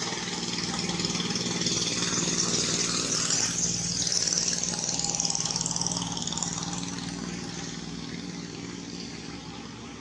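A motor running steadily with a low hum, under a high hiss that swells in the middle and fades a little near the end.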